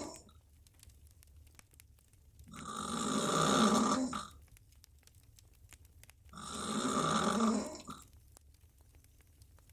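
A woman snoring loudly with her mouth open while lying on her back: two long rasping snores about four seconds apart. Each swells as she breathes in and ends with a short catch.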